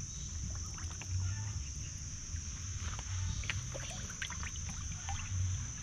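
Water sloshing and splashing in a plastic tub as African catfish and patin thrash and a child's hand grabs at them, with scattered small splashes and knocks. A steady high whine runs underneath.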